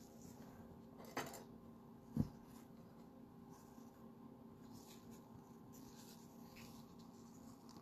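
Faint handling of trading cards and card packs on a table: a short rustle about a second in, a soft thump just after two seconds, then light scrapes and slides of card stock, over a low steady hum.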